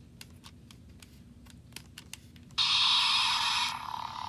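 A few soft clicks, then, about two and a half seconds in, a sudden loud electronic hiss-and-buzz sound effect with no bass to it, like a small speaker. It cuts off sharply after about a second, leaving a lower buzz for a moment longer.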